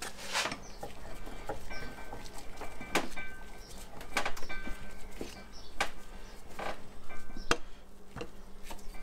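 Scattered clicks and knocks as a two-part 3D-printed mold with steel alignment bolts is handled and set against a bench vise. A faint high tone comes and goes between the knocks.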